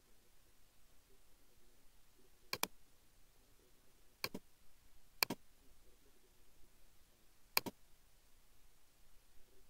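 Four computer mouse clicks, each a quick doubled tick of the button going down and up, spaced one to two seconds apart, over a faint hiss.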